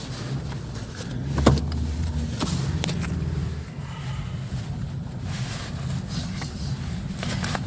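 Car engine and road noise heard from inside the cabin while driving off at low speed, with the engine's low hum swelling for a couple of seconds. A sharp knock about a second and a half in, with a few lighter clicks after it.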